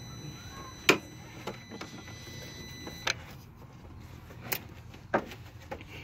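A few sharp, separate clicks and knocks of hands working at the car, the loudest about a second in. A faint steady high whine stops with a click about three seconds in.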